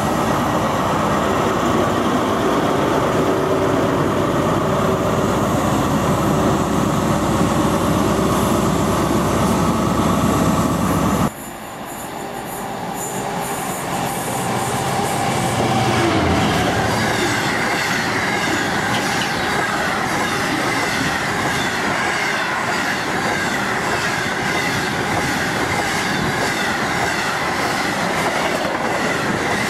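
A CrossCountry HST's Class 43 diesel power car runs past under power with a steady engine note. After a sudden break about a third of the way in, a Class 66 diesel locomotive's engine grows louder as it approaches and passes. It is followed by a long rake of hopper wagons rumbling by, with a rhythmic clickety-clack of wheels over rail joints and a high wheel squeal.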